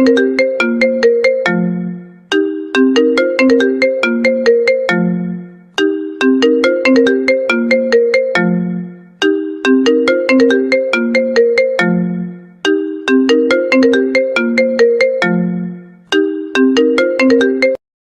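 iPhone call ringtone: a short phrase of quick pitched notes over a low note, repeating about every three and a half seconds and cutting off suddenly near the end.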